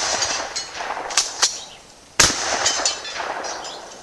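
Sears and Roebuck 12-gauge shotgun with a full-choke barrel fired twice with 6-shot loads, the blasts a little over two seconds apart, each trailing off in an echo. Two short sharp clicks come between the shots.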